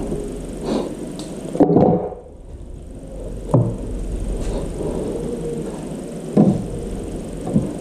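A few separate knocks and thuds, the loudest about two seconds in, over a steady low hum.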